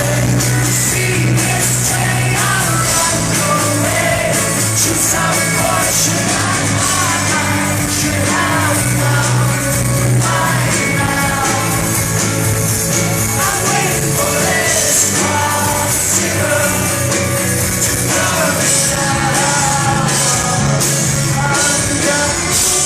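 Rock band playing a song live in concert, with singing.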